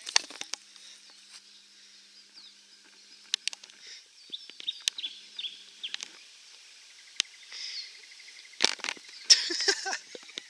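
Footsteps crunching and scuffing over dry leaves, sticks and loose ground, with a louder run of crunching near the end. Birds chirp faintly in the background.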